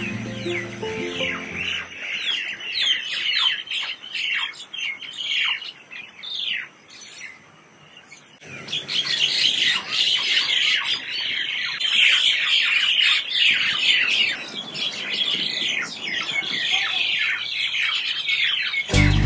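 A flock of birds calling together: many short downward-sweeping chirps and squawks overlapping in a busy chatter, with a brief lull partway through.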